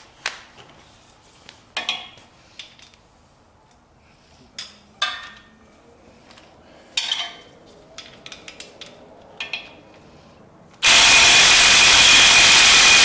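Scattered clinks and knocks of hand tools and parts during an engine teardown, then near the end a power tool runs in one loud, steady burst of about two seconds with a thin whine in it.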